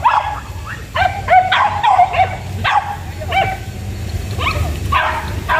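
Hunting dogs, beagles and village dogs, yelping and baying in short, high cries that drop in pitch, about a dozen in quick bursts with a brief lull in the middle, typical of dogs giving tongue while chasing quarry.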